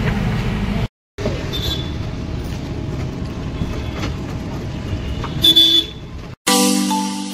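Street and vehicle noise around a parked passenger van, with a short vehicle horn toot about five and a half seconds in. Background music with bell-like notes starts near the end.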